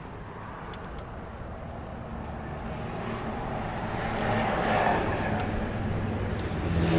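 Toyota Avanza's fuel-injected petrol engine running in the open engine bay, slowly getting louder. The mechanic says it sometimes runs rough and sounds like a diesel, and he suspects an ignition coil is dead.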